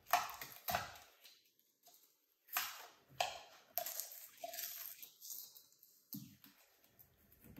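Cardboard being torn by hand as the inner core of a filament spool is ripped out: about half a dozen short tearing and cracking rips, separated by brief pauses.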